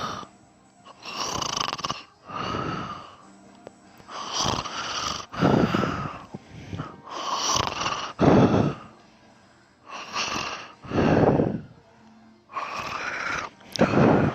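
A sleeping person snoring, breath in and breath out in a steady rhythm: a pair of loud snores about every three seconds.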